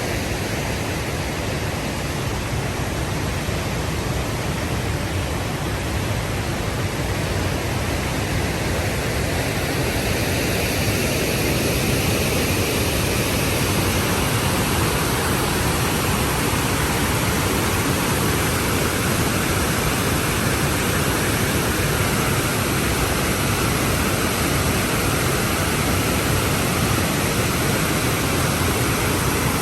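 Waterfall: a steady rush of falling water, a little louder from about ten seconds in.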